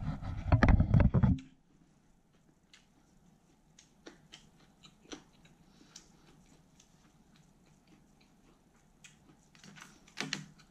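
Close-miked chewing and crunching of a lettuce wrap with thin-sliced pork belly, loud for about the first second and a half. It then goes mostly quiet with faint small clicks, and a brief louder bit of chewing near the end.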